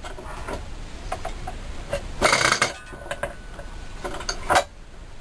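Metal parts of a Scheppach DP40 bench drill press clinking and knocking as they are handled and fitted together, with a short burst of clattering about two seconds in and a sharp knock near the end.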